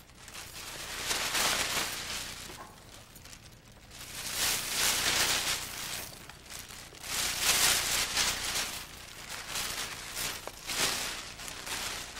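Rustling and crinkling as soft toys and a plastic bag are handled, coming in swells every few seconds.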